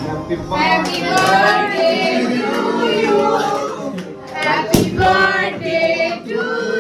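A group of people singing together, a birthday song as the cake is cut. A single sharp crack about two-thirds of the way through.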